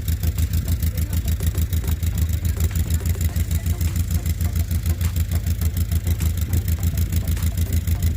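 An engine running steadily with a fast, even low pulse.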